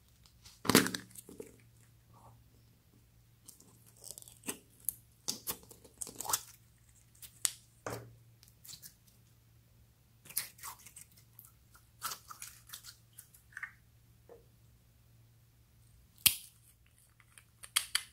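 Clear glitter slime squeezed and stretched by hand, giving scattered short sticky crackles, pops and clicks. A sharp plastic snap about a second in, from a pink plastic capsule being pulled open.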